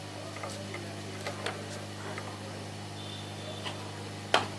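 Small light clicks and taps as magnets are set on the reballing stencil to hold it over the chip, with one sharper click near the end, over a steady low electrical hum.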